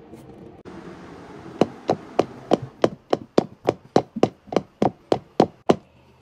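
A quick, even run of about fifteen sharp knocks, about three and a half a second, that stops suddenly.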